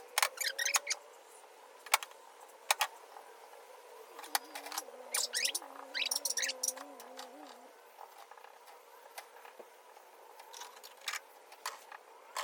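Work sounds of seam sealer being applied along a car's floor seams: scattered sharp clicks and short crackly rasps, bunched near the start and again around the middle.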